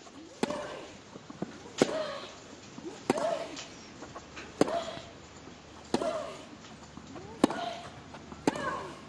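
Tennis rally: a racket strikes the ball seven times, about every second and a half, alternating between the two players, each hit followed by the hitter's short grunt.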